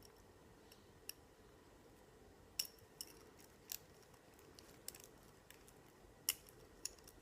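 Faint, scattered small metal clicks, about seven or eight, from a steel split ring and lobster clasp being worked together by hand as the clasp is threaded onto the ring.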